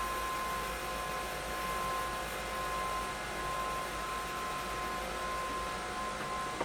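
Small electric cross-flow fan running steadily: an even rushing hiss with a thin, constant whine.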